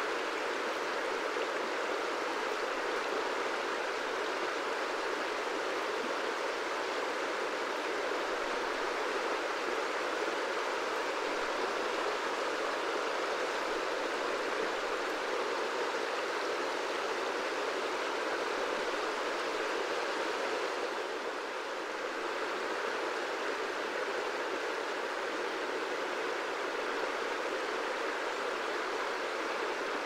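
A wide river flowing: a steady, even rush of moving water, easing slightly for a moment about two-thirds of the way through.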